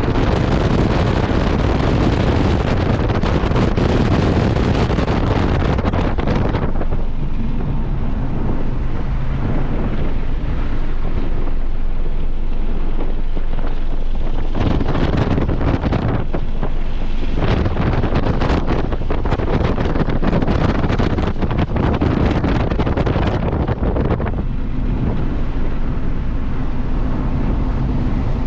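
Heavy wind noise buffeting the microphone of a car at speed on track, with the engine running underneath. The wind eases about six seconds in and again for the last few seconds, where the engine's steady note comes through more clearly.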